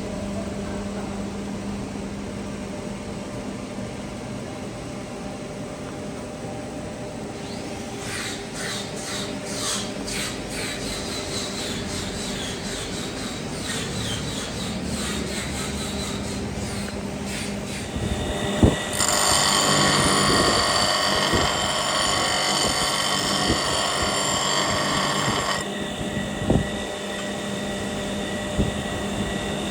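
A wood lathe running with a turning tool cutting the spinning wood block, over a steady motor hum. From about eight seconds in, the cutting chatters quickly. It turns much louder and higher-pitched from about nineteen to twenty-six seconds, with a few sharp knocks.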